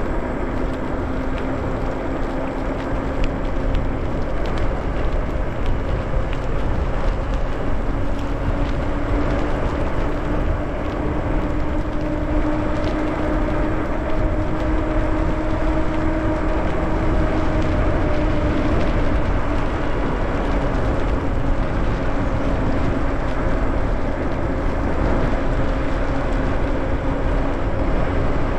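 Riding an electric bike: wind buffeting the microphone and tyres rolling on wet pavement, under the electric motor's steady whine, which rises a little in pitch through the middle and eases back down.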